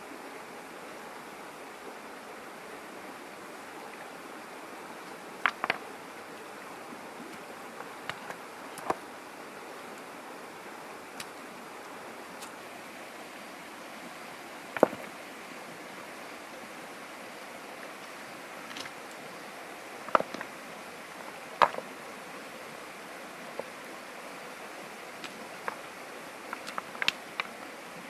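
Steady rush of a flowing stream, broken by scattered sharp clacks of river stones knocking together as they are handled, over a dozen in all, with a quick cluster near the end.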